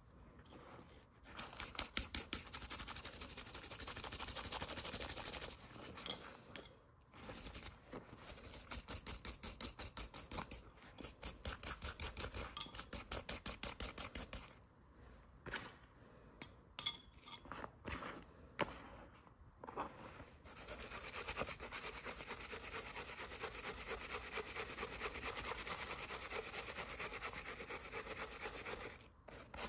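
Wire brush scrubbing fast back and forth over a die-cast metal toy truck body, about six strokes a second, in bursts with short pauses. It is stripping heat-loosened paint down to bare metal. In the last third the sound turns into a steadier, continuous scratching.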